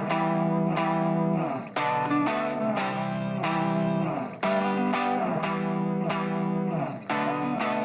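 Background music led by an effects-laden, distorted electric guitar, with notes struck about twice a second.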